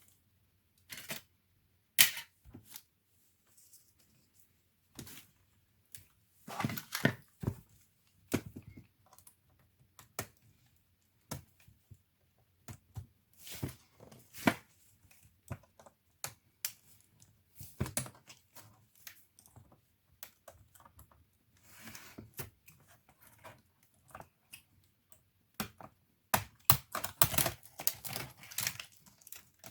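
Scattered clicks, taps and scrapes of hands and tools working on the plastic and metal parts of an HP 630 laptop, with a dense run of clicking near the end.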